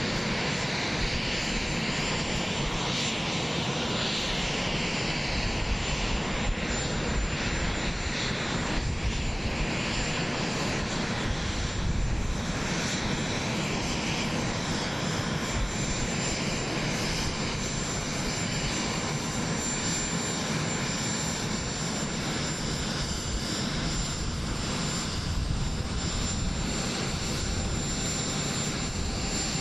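Steady aircraft turbine engine noise with a constant high-pitched whine over a low rumble that swells and fades unevenly.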